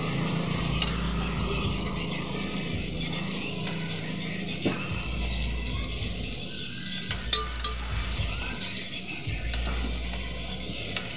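Batter and egg frying in a cast-iron takoyaki pan with a steady sizzle, and a few sharp clinks of a metal pick against the pan, the loudest about seven seconds in. A low hum runs underneath and drops out now and then.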